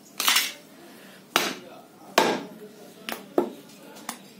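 Butcher's cleaver chopping mutton on a round wooden log block: six sharp strikes at uneven intervals, the first the loudest.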